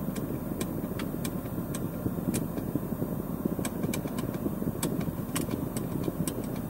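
Irregular sharp clicks from the W221's COMAND rotary controller as it is turned through the dashboard settings menu, over a steady low rumble in the car's cabin.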